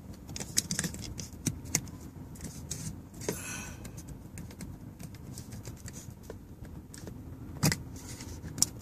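Small plastic clicks and rattles from a phone holder mount being handled and twisted, with a brief scrape about three seconds in and a louder click near the end.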